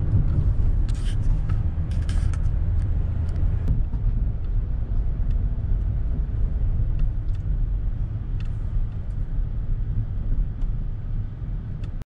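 Steady low road and engine rumble of a car, heard from inside the cabin while driving. A few light clicks come in the first few seconds.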